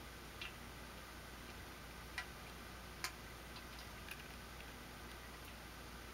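Faint, irregular ticks and clicks, about five spread unevenly, over a low steady hum and hiss.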